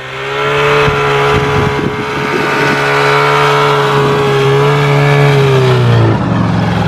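Two-stroke engine of a 1995 Polaris Indy Trail 500 snowmobile running at a steady pitch as the sled pushes through deep snow, its note dropping lower about six seconds in.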